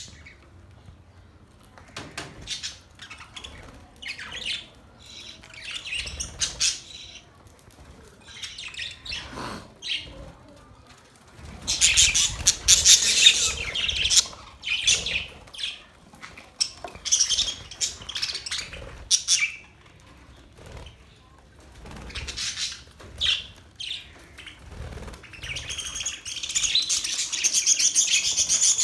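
Budgerigars chirping and warbling in irregular bursts of high, rapid notes, with the loudest stretches about twelve seconds in and over the last few seconds.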